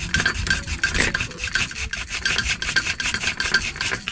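Waterproof sandpaper rubbed in quick back-and-forth strokes against the hard plastic body of a Gan Craft Jointed Claw Shaku-One swimbait, a steady rasping scrape as the body is sanded down. The strokes stop abruptly at the end.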